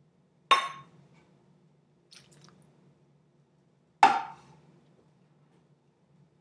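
Two sharp glass clinks, about half a second in and again near four seconds, each with a brief ring: small containers knocking against a glass mixing bowl as ingredients are tipped in. A faint lighter tap or rattle comes about two seconds in.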